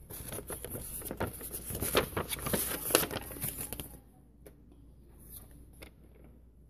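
Sheets of folded paper rustling and crinkling as they are handled and flapped, for about four seconds, then a few light taps as the papers are set down.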